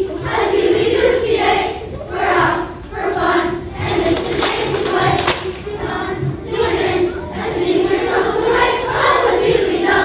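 Children's choir singing together, in phrases about a second long.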